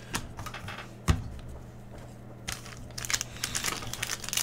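Trading cards being handled, with a few light clicks and a knock about a second in. Then, from about two and a half seconds in, the foil wrapper of a Panini Prizm basketball pack crinkles and crackles as it is torn open.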